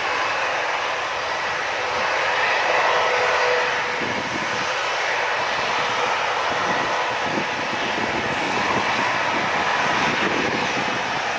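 Twin-engine jet airliner's engines at takeoff power on its roll down a wet runway: a steady, loud jet noise with a faint steady tone, and a crackle in the low end from about four seconds in.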